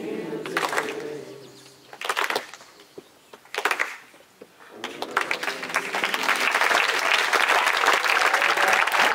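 A group of people applauding: a few scattered claps and voices at first, then about five seconds in the clapping swells into full applause and keeps going, with a whoop near the end.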